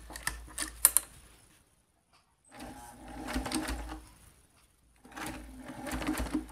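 Singer 328K sewing machine stitching through layers of purse leather with twin needles, running in two bursts of about two seconds each with a short stop between. A few sharp clicks come in the first second, before the machine starts.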